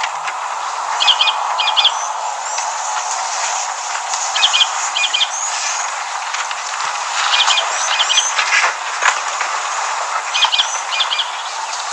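A bird calling outdoors, giving a pair of short chirping calls about every three seconds, four times over, above a steady hiss of background noise.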